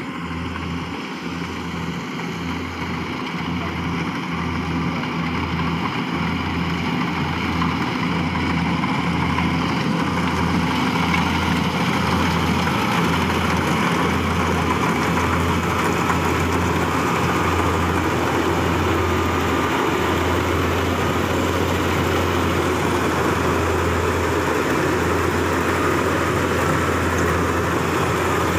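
Yanmar combine harvester's diesel engine running steadily with a low hum. The hum pulses for the first ten seconds or so, then evens out and grows slightly louder.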